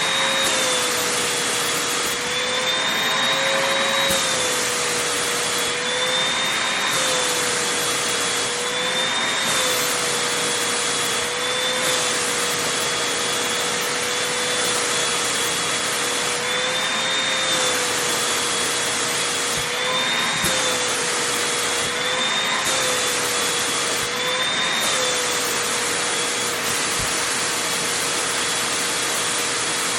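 Vacuum cleaner running on fabric, a steady motor whine over airflow noise. The whine's pitch rises briefly and drops back every couple of seconds, then holds level near the end.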